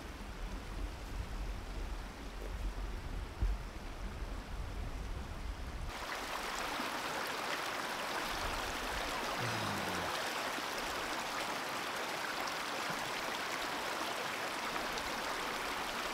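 Shallow stream running and babbling over rocks, steady and louder from about six seconds in.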